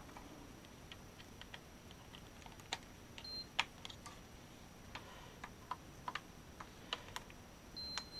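Scattered faint plastic clicks and taps from FPV goggles being handled, with two short high-pitched electronic beeps, one about three seconds in and one near the end.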